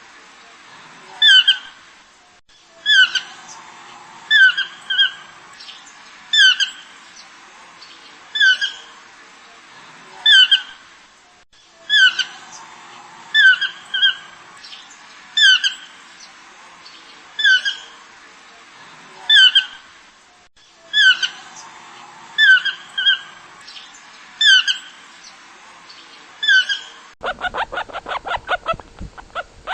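A bird's short, sharp squawking calls, each dropping in pitch, repeated every second or two in a recurring sequence. Near the end they give way to a rapid clattering of about ten clicks a second.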